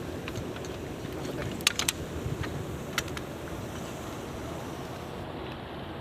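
A few sharp clicks over a steady low rumble: a quick cluster of three or four about a second and a half in, and one more about three seconds in.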